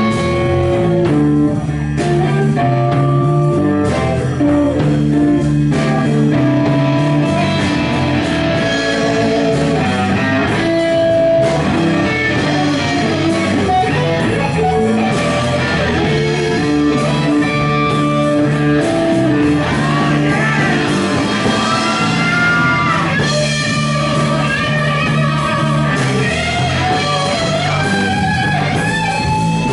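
Live blues-rock band, led by an electric guitar (a Gibson) playing lead lines over the band at a steady loud level. String bends come in the second half.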